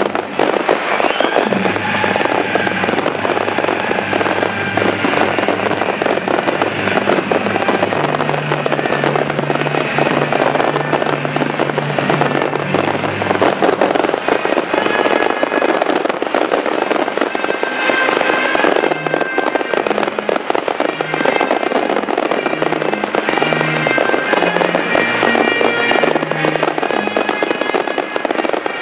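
Fireworks display, a dense continuous crackling and popping of many shells and crackle effects going off together, over loud music played with the show.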